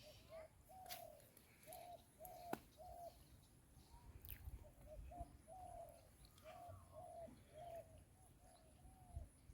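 A bird calling faintly, a steady series of short, hollow notes repeated about twice a second, with a couple of sharp clicks among them.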